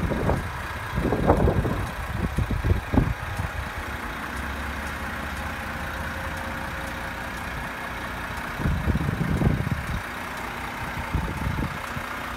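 Heavy truck diesel engine idling steadily, with gusts of wind buffeting the microphone in the first few seconds and again about nine seconds in.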